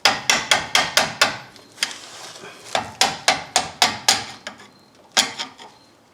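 Quick runs of hammer taps on steel, several blows in a row and then a pause, seating the snap ring of a newly installed lower ball joint in the steering knuckle. A last single tap comes a little after the middle.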